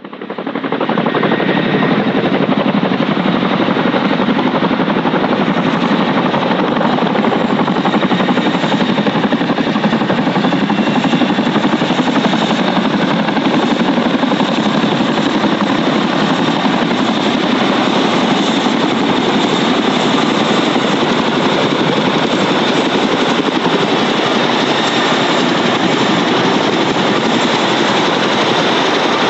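Boeing CH-47F Chinook tandem-rotor helicopter flying low on approach to land, its two rotors making a fast, steady chop over a faint high turbine whine. The sound fades in at the very start, then holds loud and even.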